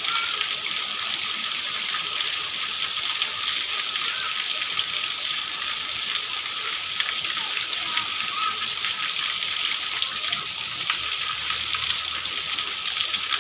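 Steady rain falling on a wet street: an even hiss of many drops.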